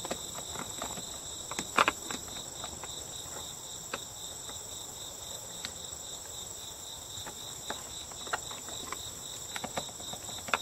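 A steady, high-pitched chorus of insects, with scattered small clicks and taps as a screwdriver works the screws in a car's plastic interior door panel; the loudest tap comes a little under two seconds in.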